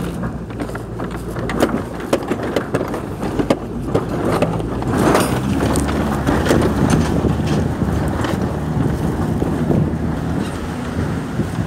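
A vehicle engine runs steadily while the vehicle is moving, with wind buffeting the microphone and scattered knocks and rattles.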